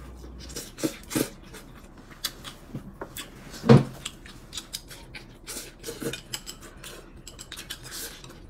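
Tableware at a meal: utensils clicking and tapping against bowls and plates in a scatter of short clicks, with one louder knock nearly four seconds in.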